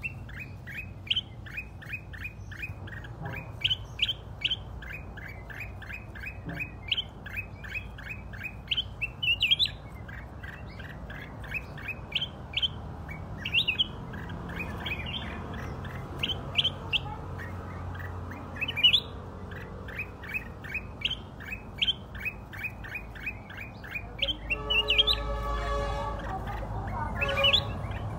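Bulbuls calling agitatedly in a territorial fight across the bars of a cage: short, sharp chirps repeated several times a second. A steady buzzing sound lasts about three seconds near the end.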